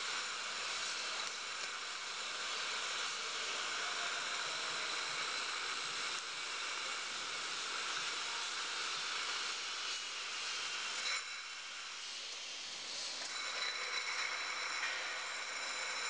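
Steady machine hiss and hum from a retort crate loader running as it moves rows of glass jars onto an autoclave basket, with a few faint steady high tones. The hiss eases briefly about two-thirds through, then comes back.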